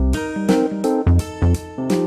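Background music: plucked guitar notes in a quick, rhythmic pattern over deep bass notes.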